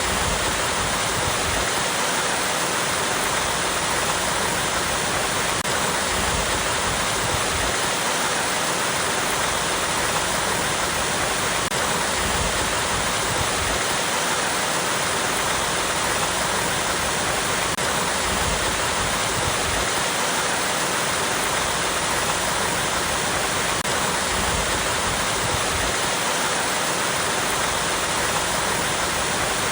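Small waterfall splashing steadily over rocks: an even, unbroken rush of water.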